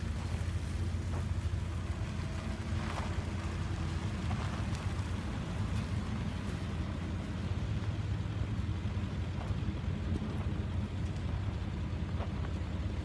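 A 1999 Dodge Ram 2500 service-body pickup driving slowly, its engine running at a steady low hum, with faint scattered crackles of tyres on gravel.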